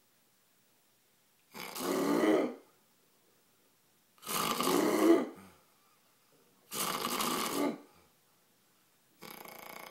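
Snoring: four snores spaced about two and a half seconds apart, each lasting about a second, with the last one fainter than the others.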